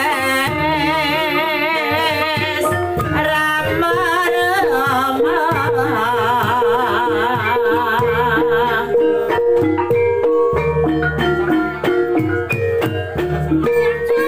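Javanese gamelan playing a gending: bronze pot gongs and hanging gongs ringing, with kendang drum strokes underneath. A singer's voice with a wide vibrato runs over the ensemble.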